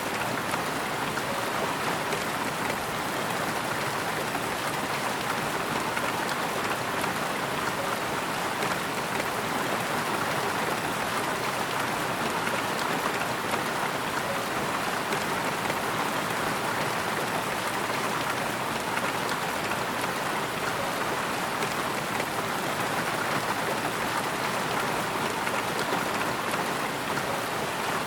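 Steady rain falling on a surface: an even, dense patter of drops.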